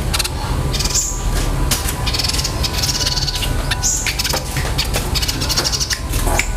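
A small songbird giving repeated very fast, high-pitched rolling trills and sharp chips, in bouts with short breaks, harsh like fighting tree sparrows. A steady low hum runs underneath.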